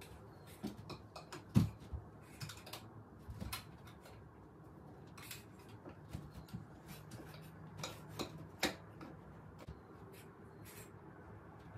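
Scattered light clicks and knocks of curtain panels being slid and adjusted by hand along a curtain rod, irregular and of varying loudness.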